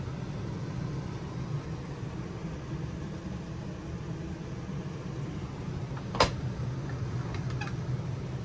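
A steady low mechanical hum, with a sharp click about six seconds in as the refrigerator door is shut, followed by a couple of lighter clicks.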